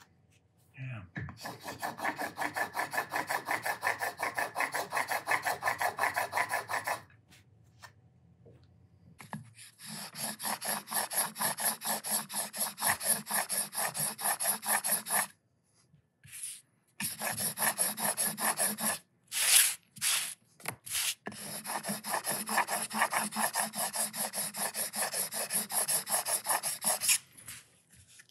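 A steel chisel clamped in a honing guide is rubbed back and forth on a 600-grit sharpening stone, cutting on both strokes. It makes a rhythmic scraping at about four strokes a second, in three runs with short pauses between them and a few single strokes just before the last run.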